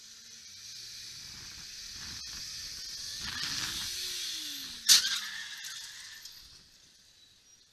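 Dashcam recording of traffic noise building up, then one sharp bang of a collision about five seconds in. A brief rattle follows, then the sound fades out.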